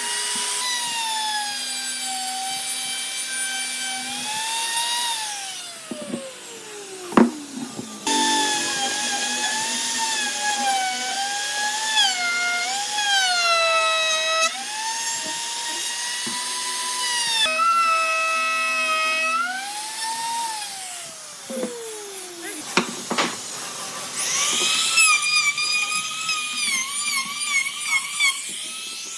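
High-speed power tool whining as it works wood, its pitch dipping and wavering under load. Twice it winds down in pitch, as if switched off, and then starts up again.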